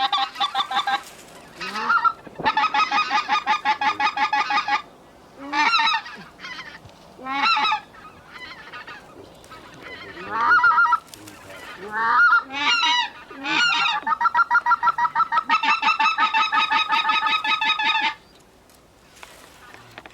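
Goose calls blown in a hunting blind: long runs of fast, evenly repeated high clucks alternating with single rising honks, the calling stopping about two seconds before the end.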